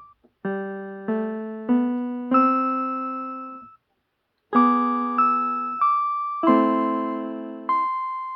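Piano played slowly, chord by chord, each chord struck and left to fade. There are four chords about half a second apart, then a break of about a second, then six more.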